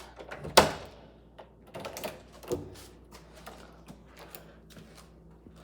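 A series of sharp clicks and knocks: a loud one about half a second in, a few weaker knocks a couple of seconds in, then faint scattered ticks over a low steady hum.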